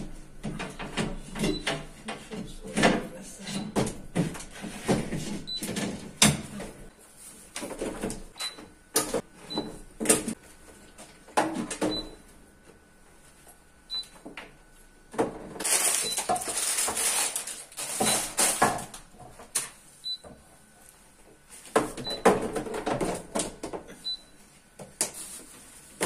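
Refrigerator shelves, bottles and a carton being handled and set back into an open fridge: a run of irregular plastic and glass clunks, knocks and rattles, with a denser stretch of rustling and clatter in the middle.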